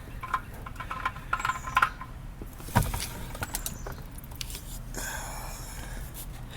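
Small metal tools and parts clinking and rattling, with a sharp knock about three seconds in.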